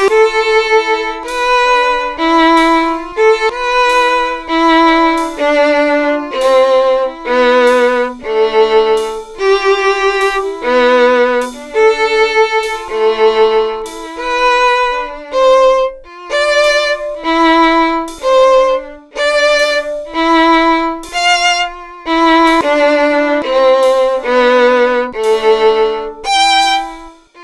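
Solo violin playing a melody one note at a time, each note with vibrato, about one or two notes a second. A last held note fades away near the end.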